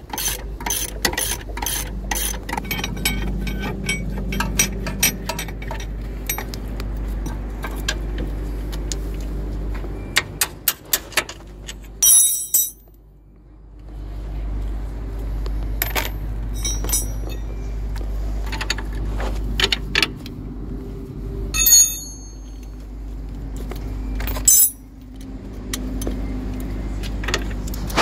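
Ratchet wrench clicking in quick runs and steel spanners clinking with a brief ring against metal while a suspension link nut is worked loose, over a steady low rumble. The clicking is densest in the first several seconds; a few separate ringing clinks come later.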